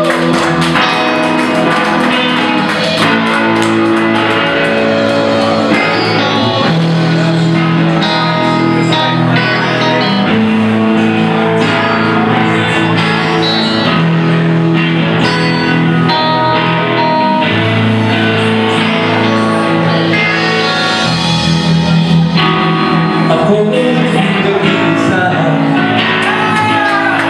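A live rock band playing loudly: electric guitars, bass and drums. Near the end a lead line bends up and down in pitch.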